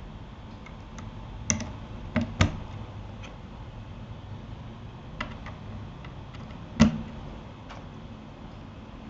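Irregular clicks and taps on a Keychron K8 mechanical keyboard fitted with Gateron Aliaz silent switches: four louder knocks, two close together a little after two seconds in and one near seven seconds, among a few faint ticks.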